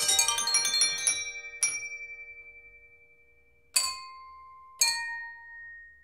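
Wine glasses on a homemade 48-glass instrument struck by small mechanical hammers, playing music. A quick run of notes comes first, then three single notes more than a second apart, each left ringing as it slowly fades.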